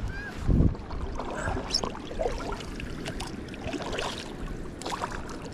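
Water splashing and sloshing in irregular bursts, with a strong low thump about half a second in.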